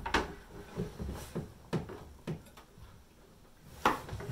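Kitchen knives tapping and knocking on a wooden cutting board and plate while ripe persimmons are cut: scattered short clicks, with one sharper knock near the end.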